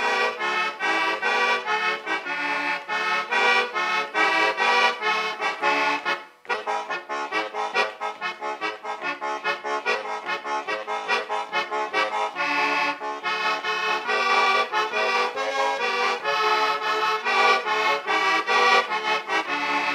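Background instrumental music with a fast, even run of notes; it drops out for a moment about six seconds in, then carries on.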